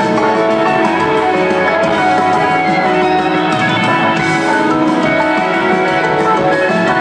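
Live rock band playing an instrumental jam, electric and acoustic guitars over a drum kit, recorded from the audience.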